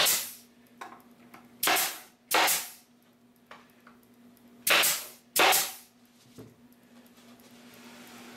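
Pneumatic narrow-crown stapler driving 1-inch staples through wooden shims into a hive cover: five sharp shots, one at the start, then two quick pairs, each trailing off briefly.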